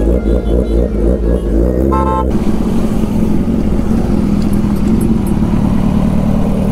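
Loud music with a steady beat for about two seconds, ending in a brief beep. Then a motorcycle engine running steadily at low speed under road and wind noise.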